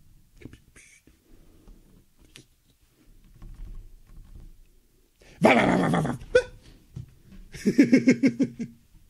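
A man's voice imitating an animal's cry: one loud call a little past halfway, then a wavering, pulsing call near the end. Before them, faint taps and rustles of hands handling a ball of yarn on a wooden table.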